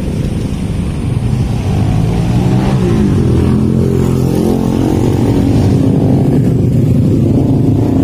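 Motor scooter and car engines running in slow, packed traffic, a steady engine drone with one engine's pitch rising and falling about three seconds in.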